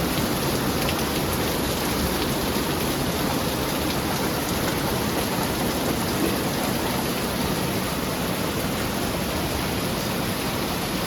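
Heavy rain pouring down steadily in a thunderstorm, a dense, even hiss.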